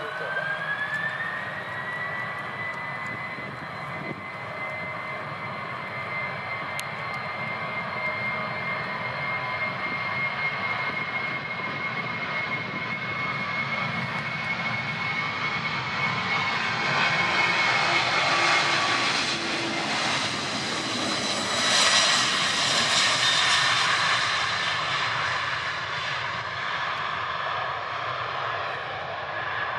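Four jet engines of a Boeing 747 on the takeoff roll: a whine rises in pitch over the first couple of seconds as the engines spool up, then holds steady. A loud roar builds as the jet passes, loudest about two-thirds of the way through, then eases off as it climbs away.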